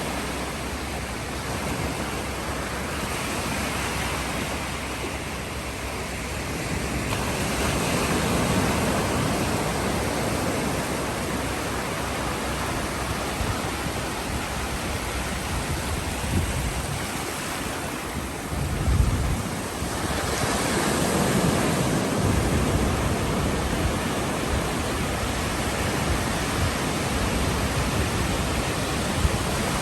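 Ocean waves breaking on shore: a continuous rush of surf that swells and ebbs as each wave comes in. A brief low rumble about two-thirds of the way through stands out as the loudest moment.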